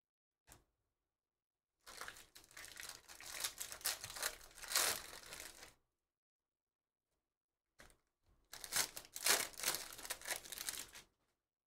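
Foil trading-card pack wrapper crinkling and tearing as the pack is ripped open, in two bouts of crackle about two and eight and a half seconds in, each lasting a few seconds.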